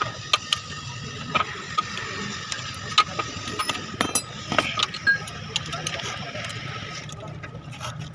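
Irregular metallic clicks and knocks of hand tools working on engine parts, over a steady background hum.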